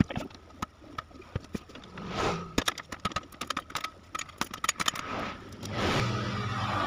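Rapid clicks and light metallic clinks from the sheet-steel case and transformer cover of a DBX 231 equalizer being handled and worked loose, densest between about two and a half and five seconds in. A low rumbling noise swells near the end.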